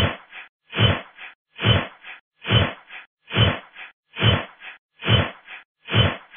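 A looped sound effect: a double thud, a loud hit followed at once by a softer one, repeating evenly about every 0.85 s with complete silence between.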